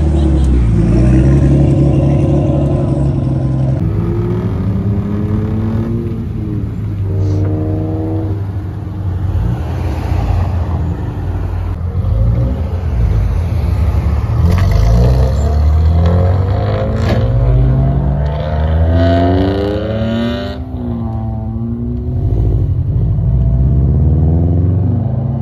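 A string of cars pulling away one after another, each engine revving up and accelerating, its rising note heard several times over as one car after another drives off.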